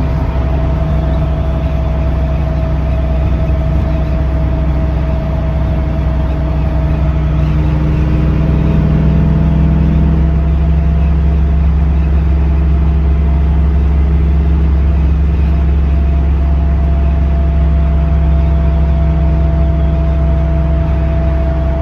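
Ford Mustang running, with a steady whine over a low engine rumble: the whining noise the owner ties to its Quick Performance / SOT three-link rear end. The engine sound shifts slightly about halfway through while the whine holds the same pitch.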